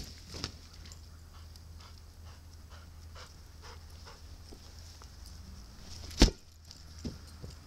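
Border collie panting, quick repeated breaths while playing with a ball. A single sharp thump about six seconds in.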